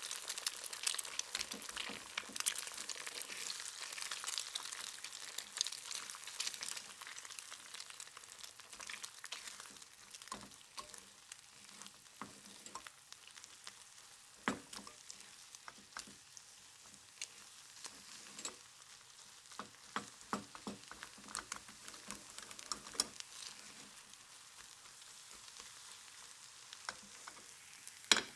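Egg frying in hot oil: a continuous sizzle with crackles and pops, loudest at first and slowly dying down as the pops grow sparser. A single sharp click near the end.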